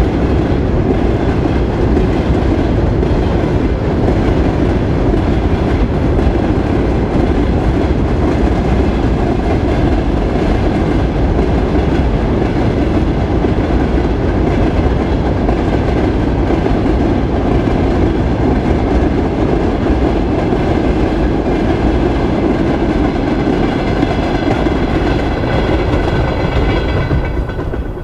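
Freight train of loaded tank cars rolling across a railway bridge: a steady loud rumble and clatter of wheels over the rail joints. The sound starts to fade near the end as the last cars pass.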